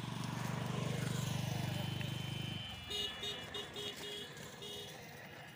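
A motor engine running with a low, steady pulsing rumble that swells and then cuts off abruptly about halfway through. A string of short, high-pitched chirps follows.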